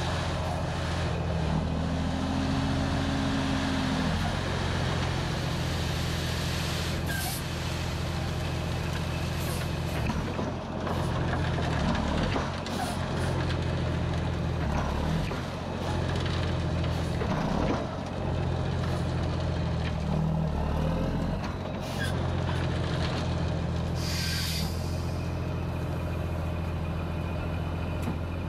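Mack CH613 truck's diesel engine running steadily while its end-dump trailer's bed is raised to unload chert, with a few short bursts of air hissing, the strongest about 24 seconds in.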